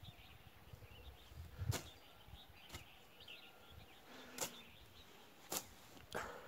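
A long-handled hand tool chopping into grass and weeds while clearing a field: five short, sharp chops spaced irregularly, about a second apart.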